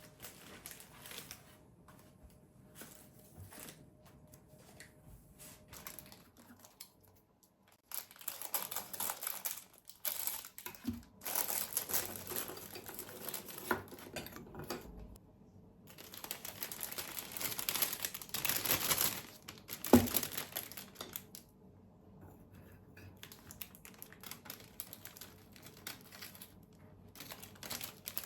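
Wrapping material, paper or plastic, crinkling and rustling as it is handled in bouts of a few seconds, with one sharp knock about twenty seconds in.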